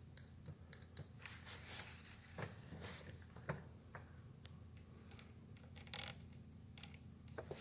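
Faint, irregular scratches and light taps of a quill pen on Torah parchment, re-inking letters whose ink has dried and flaked off.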